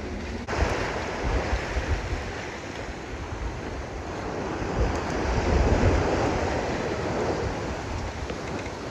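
Water rushing and hissing along the hull of a sailing yacht driving through choppy seas, with wind buffeting the microphone as a low rumble. It starts abruptly about half a second in and surges louder midway as the bow wave builds.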